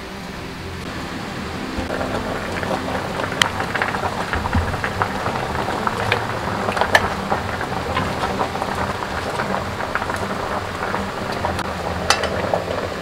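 Seafood boil bubbling in a stainless steel pot on the stove: a steady hiss with many small pops and crackles, growing stronger about two seconds in.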